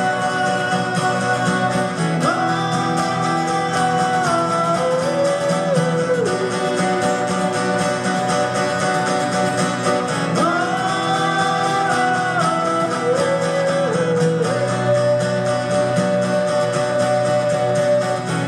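Two guitars playing a song live, with a melody of long held notes over them that steps down at the end of each phrase.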